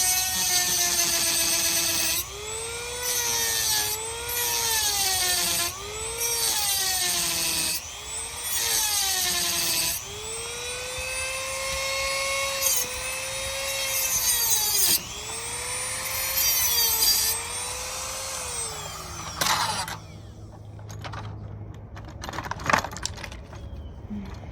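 Dremel rotary tool with a heavy-duty cutting wheel grinding through a steel chain link. The motor whine sags in pitch each time the wheel bites the metal and rises again as it lifts off, with loud bursts of hissy grinding. It stops near the end, followed by a few light knocks and clinks.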